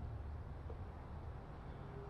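Quiet background with a steady low rumble and no distinct sound event.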